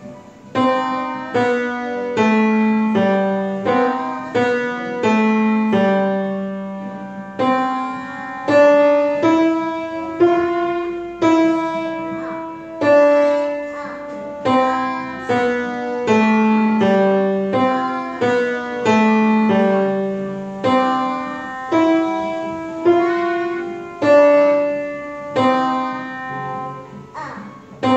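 Grand piano playing a slow, simple tune, its notes struck one after another about once or twice a second and each left to ring and fade.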